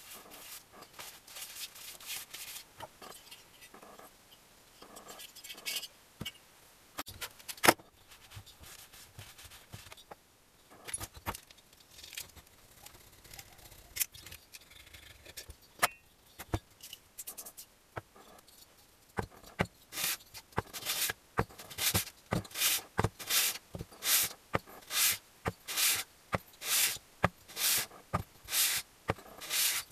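Finned engine cylinder rubbed back and forth on a sheet of abrasive paper to true its face: after about two-thirds of the way in, a steady run of rasping strokes, about one and a half a second. Before that, scattered light scrapes and clicks of engine parts being handled and cleaned.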